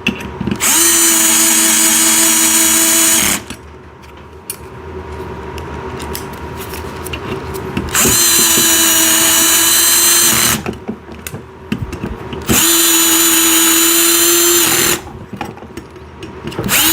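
Power drill with a 5 mm hex bit driving bolts, running in three steady bursts of two to three seconds each, with a fourth starting near the end; quieter handling noise between the bursts.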